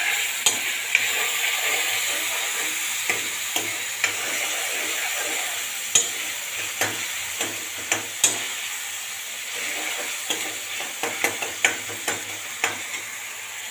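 Chopped tomatoes sizzling in hot oil in a kadhai as they are sautéed and stirred with a spoon, with irregular clicks and scrapes of the spoon against the pan. The sizzle slowly fades.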